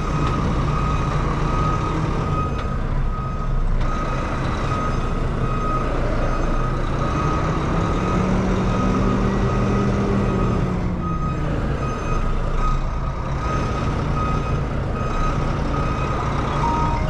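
Tractor-trailer reversing: its backup alarm beeps steadily about once a second over the diesel engine running, which revs up and settles back about eight seconds in.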